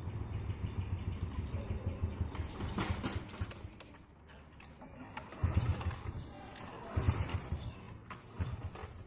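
Motorbike engine running rough, then dying out about four seconds in, followed by a few short, uneven low rumbles. This is the jerking-and-stalling fault, which the mechanic puts down to the carburettor or spark plug.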